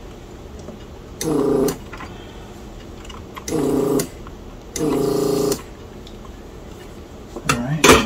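Vacuum pump of an electric desoldering gun buzzing in three short bursts, about half a second, half a second and just under a second long, as it sucks molten solder off key-switch joints on a circuit board.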